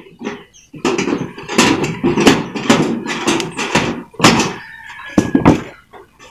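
Hand pliers folding and pressing the sheet metal of a box gutter seam: an irregular run of sharp knocks and clanks, a few with a short ring.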